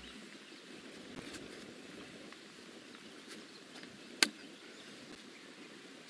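Faint outdoor background with a few soft ticks, and one sharp click about four seconds in.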